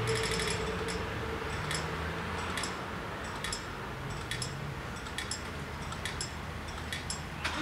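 Dutch automatic level crossing clearing after a train: the rapid ringing of the warning bells stops about half a second in while the barriers lift. A slow, steady tick comes about once a second, with a sharper knock near the end.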